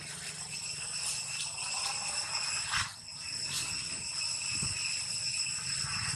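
Steady, high-pitched ringing drone of an insect chorus, several pitches held together, with a brief sharp sound a little under three seconds in.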